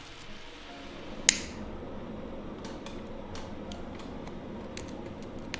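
A sharp click about a second in, then scattered faint clicks and small crackles as a lighter sets a bunch of dry kindling alight at the firebox of a brick wood-fired stove.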